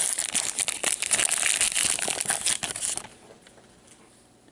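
A foil trading-card pack wrapper being torn open and crumpled, a dense crackling that stops about three seconds in.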